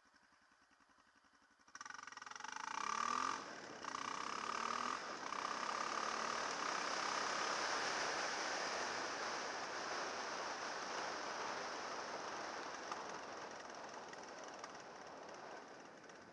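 Dirt bike engine, faint at first, then about two seconds in it pulls away hard, its pitch rising through the gears with a brief dip at a shift. It settles into steady riding buried under heavy wind rush on the microphone, slowly fading near the end.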